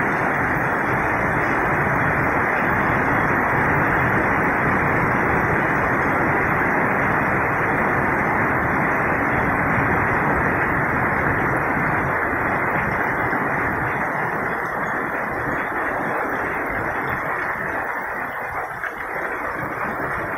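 Heavy rain falling steadily, a loud, even hiss of rain with no breaks.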